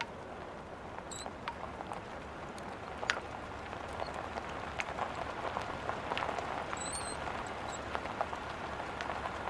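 Water dripping: scattered single drops falling into a puddle over a steady wash of noise that swells a little in the middle.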